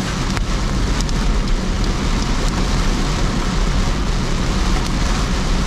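Steady noise inside a moving car: a low rumble of engine and tyres under an even hiss.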